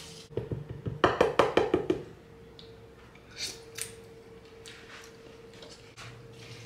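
A quick run of about ten sharp knocks on a plastic mixing bowl as diced apples are emptied in from a plastic colander, followed by two lighter clunks of kitchen utensils.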